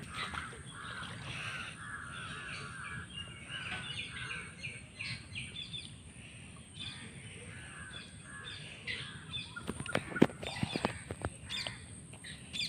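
Birds calling and chirping, with crows cawing among them, and a few sharp knocks about ten seconds in.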